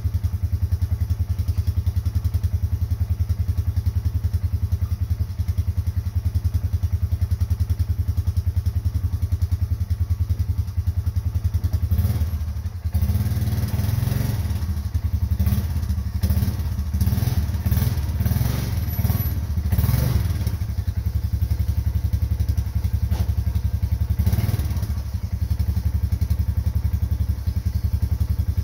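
A vehicle engine idling with a steady low, pulsing rumble. Over it comes a run of clattering knocks and thuds through the middle, and one more a little later.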